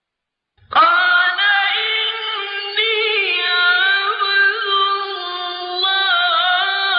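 A man's voice chanting Quran recitation in a melodic, ornamented style: after a moment of silence, a single long drawn-out phrase starts under a second in and is held for about six seconds, its pitch wavering in embellishments.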